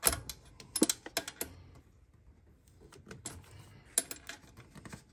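Irregular metal clicks and clinks as the alternator is worked into its adjustment bracket by hand: a few sharp taps in the first second and a half, and another cluster about four seconds in.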